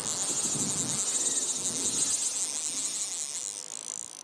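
A steady, high-pitched insect chorus, like crickets chirping, fading near the end.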